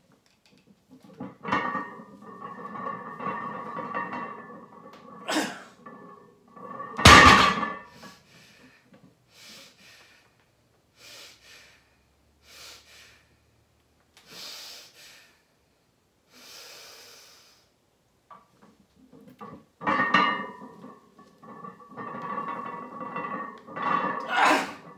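A barbell loaded to 500 lb deadlifted for two reps, with a strained held groan from the lifter during each pull. About seven seconds in, the loaded plates hit the floor with a heavy thud, the loudest sound, followed by short sharp breaths before the second pull, which ends at lockout near the end.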